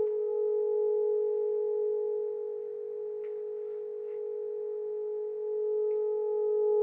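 A steady ringing tone with several fainter, higher overtones held above it, easing a little in loudness in the middle.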